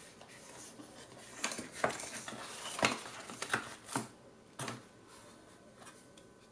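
Hands handling a new LG V10 smartphone and its packaging: about half a dozen short clicks and scrapes over the first five seconds.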